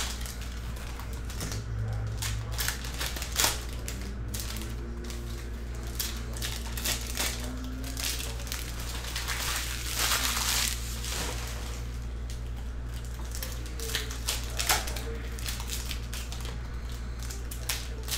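Trading-card packs being torn open and hockey cards slid and flicked through by hand: a string of paper clicks and wrapper crinkles, with a longer rustle about ten seconds in. A steady low hum runs underneath.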